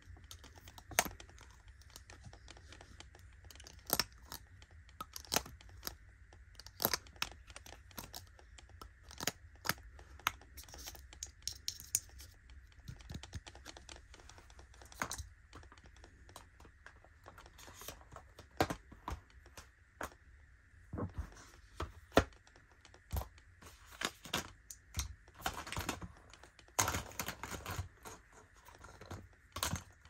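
Irregular clicks, taps and clacks of metal makeup cases handled close to the microphone: a gold lipstick tube and compacts are picked up, turned over and set down, with a cluster of taps near the end. A faint steady low hum runs underneath.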